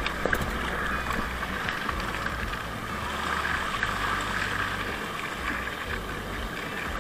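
Water rushing and splashing along a small paddle craft's hull as it runs through river swell, with wind rumbling on the microphone.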